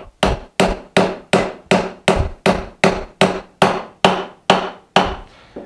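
A mallet striking a chisel in steady blows, about two and a half a second, chopping down into a dovetail in wood. The pitch of the blows changes as the chisel reaches the bottom of the cut and meets more solid material, the sign to stop chopping.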